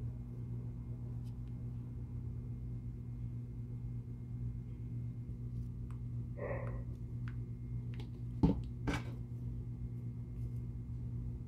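Steady low hum of room tone. Near the end come two sharp knocks about half a second apart, from the plastic mixing cup being set down on the workbench.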